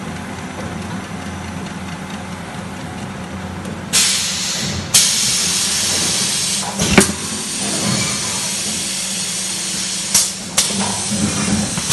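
Paper tube winding machine running with a steady hum; loud hissing starts about four seconds in and fades after a couple of seconds, and a few sharp clanks follow as the machinery moves.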